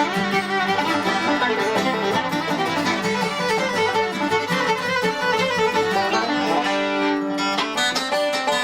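Background bluegrass-style music with banjo and fiddle.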